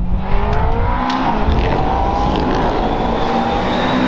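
McLaren 720S GT3 Evo race car's twin-turbo V8 accelerating hard toward and past, its engine note rising steadily in pitch through one gear. A few sharp pops come in the first couple of seconds.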